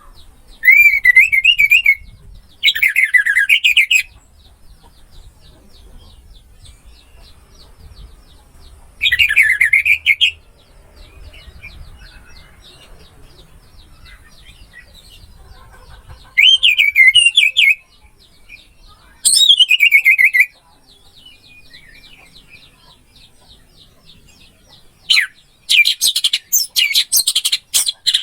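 Orange-headed thrush singing: loud whistled phrases of about a second each, sliding up and down in pitch with pauses of a few seconds between them, then a quicker run of phrases near the end.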